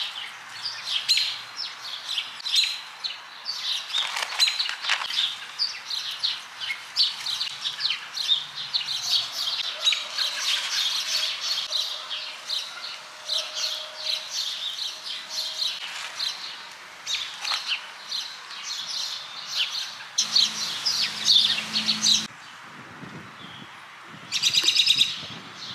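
Songbirds chirping busily, several short calls a second, with a brief low hum and a short rapid trill near the end.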